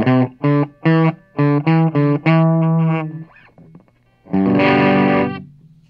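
Gibson SG electric guitar played through a single-transistor 2N5088 preamp stage built on a breadboard, heard through a small mic'd 30-watt bass amp. It plays a quick run of about a dozen short picked notes, then a longer held chord a little past four seconds in that rings for about a second. The tone is only lightly distorted, with a little bit of distortion, not a whole lot.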